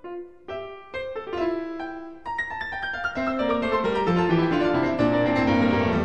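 Classical solo piano music: a few separate notes at first, then from about two seconds in a fuller, louder passage with the bass stepping downward.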